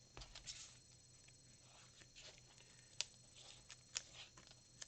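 Faint rustling and light clicks of a Pokémon trading card being picked up and handled, with two sharper ticks about three and four seconds in.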